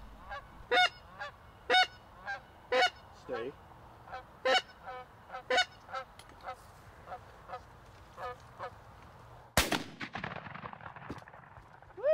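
A string of goose honks, one or two a second, from a single Canada goose coming in to the decoys or the hunters' goose call answering it. About nine and a half seconds in, one shotgun blast cracks out and echoes briefly.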